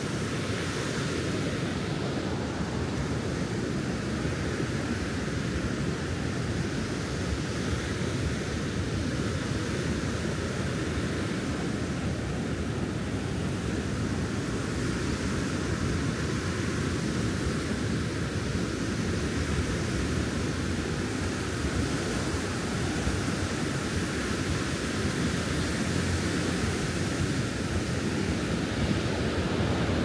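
Steady, continuous wash of ocean surf mixed with wind, an even hiss with no separate breaks or impacts.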